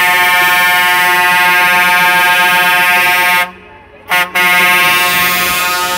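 Truck air horn blowing a long, loud note held at one steady pitch. It breaks off about three and a half seconds in, gives a short blast half a second later, then holds the note again.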